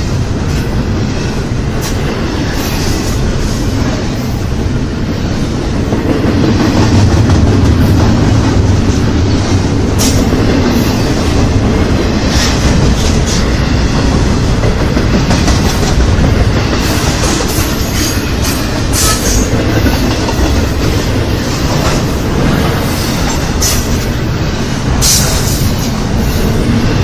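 Intermodal freight train's cars rolling past, a steady rumble with wheels clicking over the rails, somewhat louder from about six seconds in.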